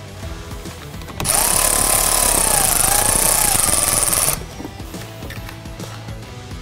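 Milwaukee cordless ratchet with a 10 mm socket running for about three seconds, backing off the nut on a battery positive terminal, then stopping abruptly.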